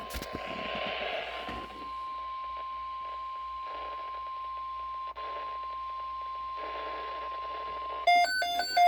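NOAA Weather Radio warning alarm tone: one steady, unwavering tone over radio hiss, held for about eight seconds. It is the attention signal that comes before a broadcast alert. It stops abruptly and is followed by about four quick electronic beeps.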